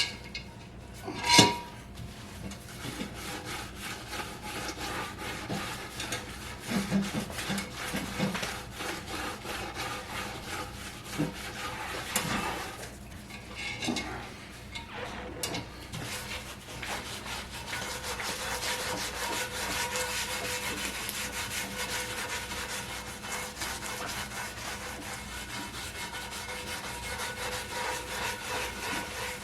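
Scrubbing pad rubbing and scraping over a cast iron McClary's No. 9 kettle, scouring off paint loosened in an electrolysis bath. A single sharp knock comes about a second in.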